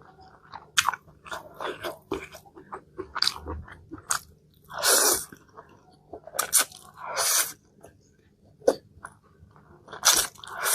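Close-miked eating sounds: a person chewing and crunching food, with irregular small crackles and three louder, longer bursts about five, seven and ten seconds in.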